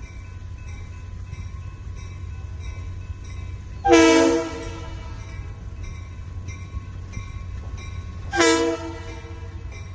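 Diesel locomotive air horn sounding a chord for the grade crossing: one long blast about four seconds in and a short blast near the end, part of the long-long-short-long crossing signal. Crossing bells tick faintly and steadily underneath, over the low rumble of the approaching train.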